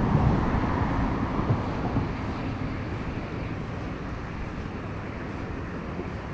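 Wind buffeting the microphone, a low rushing noise that is strongest for the first couple of seconds and then settles to a steadier, softer rush.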